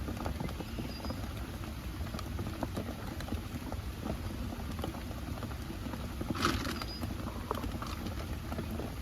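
Rain falling on the bike camper's roof: a steady, dense run of small drop ticks over a low hiss, with one sharper, louder tap about two-thirds of the way through.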